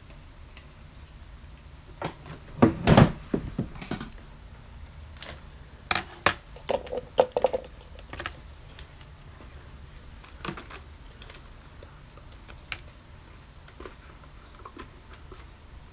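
Handling noise of trading cards being picked up, shuffled and set down: a cluster of clicks and knocks about two to four seconds in, the loudest about three seconds in, another cluster about six to eight seconds in, then scattered light taps.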